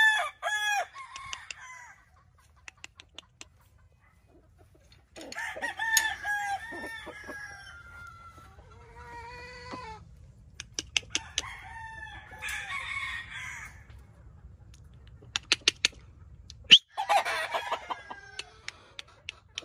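Gamefowl stags (young roosters) crowing in turn, a long crow every few seconds, three full crows after the tail of one at the start.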